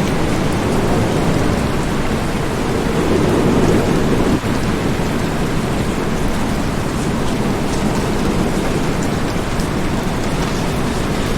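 Steady heavy rain with thunder. A low rumble swells about three seconds in and ends abruptly about four seconds in.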